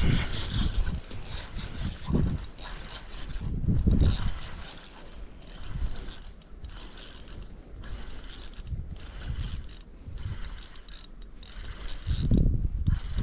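Spinning reel being wound steadily, its gears whirring and ticking rapidly as line is retrieved, with a few low rumbles at times.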